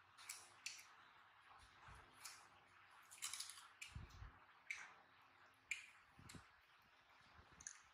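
Baby macaques chewing crunchy slices of green fruit: faint, scattered wet crunches and clicks, with a few soft low thumps.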